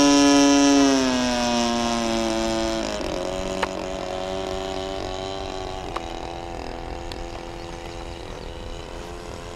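Radio-controlled model biplane's engine and propeller running in flight, a buzzing drone; its pitch drops between about one and three seconds in, then the sound steadily fades. Two short clicks partway through.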